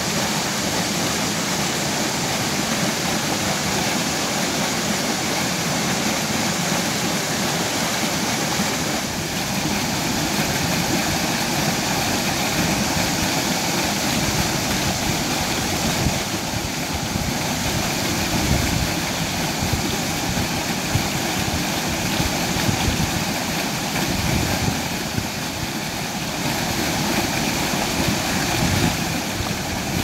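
Small waterfall pouring into a rock pool: a steady rushing of water, with uneven low rumbling from about nine seconds in.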